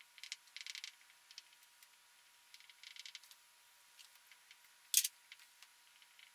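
Faint scattered clicks and short scratchy rustles, with one sharper click about five seconds in.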